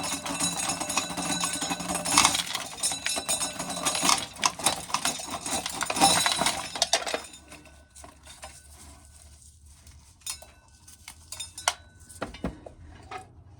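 Ear corn being shelled: a dense rattling and clinking of dry kernels dropping into a metal coffee can, which stops about seven seconds in and gives way to a few scattered clicks.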